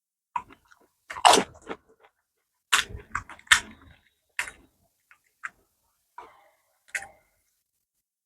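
A person eating fuchka (pani puri): crisp hollow shells crunching and being chewed, in irregular bursts.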